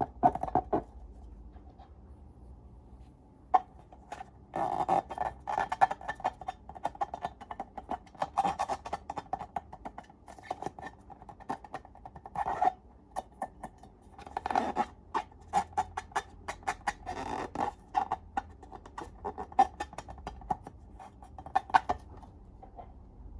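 Slime being squeezed and worked by hand: a dense run of wet clicks, squelches and small pops, in several louder bursts.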